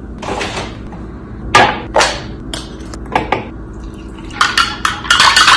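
Sharp knocks and clinks, like dishes and a utensil being handled: single knocks spaced roughly half a second to a second apart, then a quick flurry near the end.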